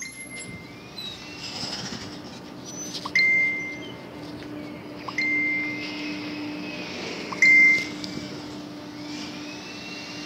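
A short, high electronic ding repeating about every two seconds over a steady low hum. These are a phone's message notification tones, sounding as a backlog of messages arrives once the internet connection returns.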